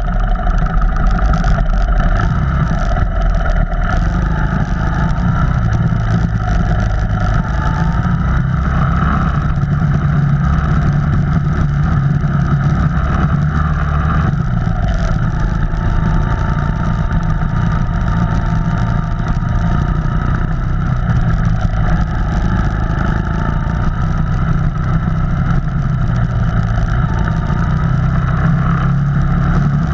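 Off-road vehicle engine running steadily, its pitch rising and falling a little with the throttle.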